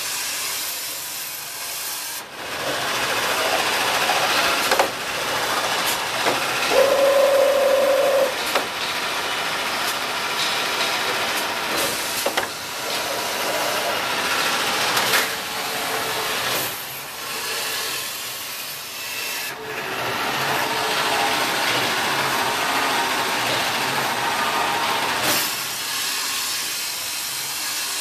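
Automatic band saw cutter and toilet paper rewinder line running, the saw slicing paper logs into rolls. There is a steady hiss, occasional knocks, and a brief steady whine about seven seconds in.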